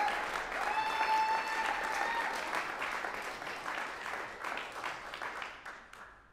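Audience applause for a solo pianist, with two high held calls from the crowd over it in the first couple of seconds. The clapping thins out and dies away near the end.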